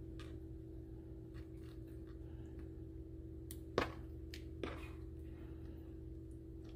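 Raw seasoned shrimp being flipped over by hand on a plastic cutting board: small wet taps and clicks, with two louder knocks just under four and just under five seconds in, over a steady low hum.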